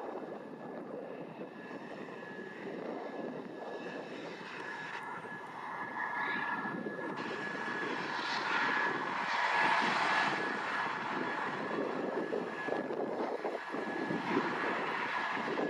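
AS365 Dauphin twin-turbine helicopter running on the ground with its rotors turning: steady rotor and engine noise with a thin high turbine whine on top, growing somewhat louder about halfway through.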